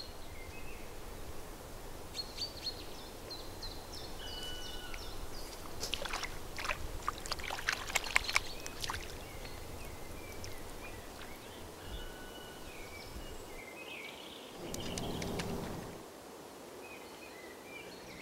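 Riverbank ambience: small birds calling in short whistled notes now and then, with a spell of splashing water about a third of the way in.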